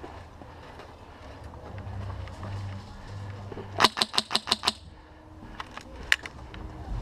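Airsoft gun firing a quick string of about seven shots, roughly eight a second, then one or two single shots about two seconds later.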